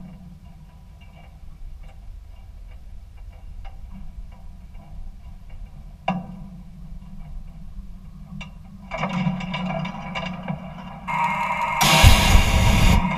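Jet engine on a jet-powered semi truck starting up. A low hum with scattered sharp clicks gives way about nine seconds in to a louder rush. From about eleven seconds a steady high whine sets in, with a loud burst of rushing noise near the end.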